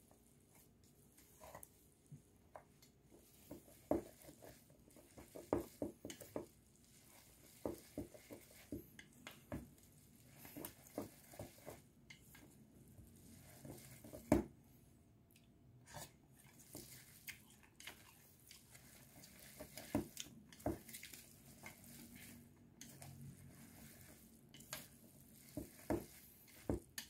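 Sauce-dressed noodles being tossed and mixed with wooden chopsticks in a large stainless steel bowl: soft wet squishes and irregular light clicks and knocks of the chopsticks against the bowl, the loudest about fourteen seconds in.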